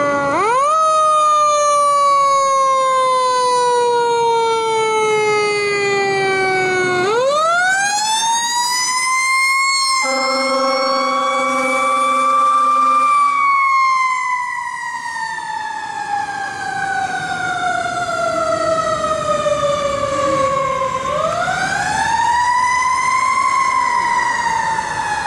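Fire engine siren wailing as the truck pulls out and drives off. It winds up quickly and slowly coasts down in pitch three times. A steady horn blast sounds for about three seconds around the middle.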